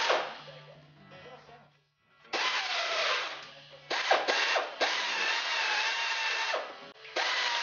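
Power drill drilling out rusted screws, running in three stretches with a steady whine that starts about two seconds in, stops briefly near the middle and again near the end, then picks up once more.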